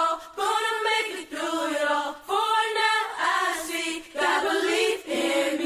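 A Christian song with a choir of voices singing in phrases about a second long, with brief pauses between them.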